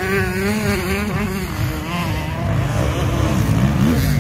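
Motocross bike engines revving, their pitch rising and falling through the first couple of seconds, then settling into a steadier drone that grows a little louder near the end.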